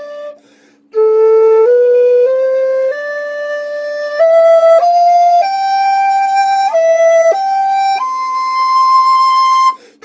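Instrumental music: a flute-like melody of held, steady notes climbing step by step over a soft sustained background, with a short break about half a second in and another just before the end.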